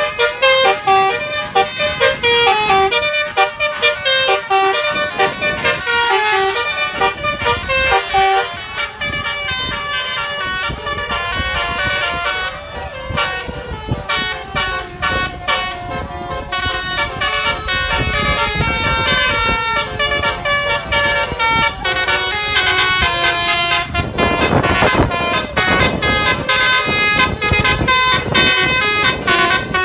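Basuri 'telolet' multi-tone bus horn playing a tune of quick stepping notes, over and over. About 24 seconds in there is a louder rush of noise.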